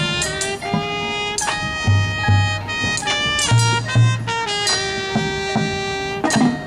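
High school marching band playing: brass holding sustained chords over deep low-brass notes, with a few sharp accents.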